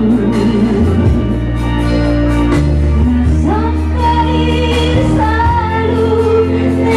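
A woman singing a slow song into a microphone over amplified instrumental backing with a steady bass line, holding long notes with vibrato.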